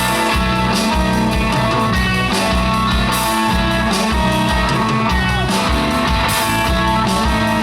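Live rock band playing an instrumental stretch with guitar to the fore over a steady beat.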